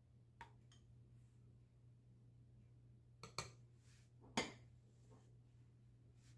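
Metal spoons clinking against white ceramic bowls of cheesecake batter as they are handled and stirred: a few separate light clinks, two near the start and a cluster about three to four and a half seconds in, the loudest about four and a half seconds in, over a faint steady low hum.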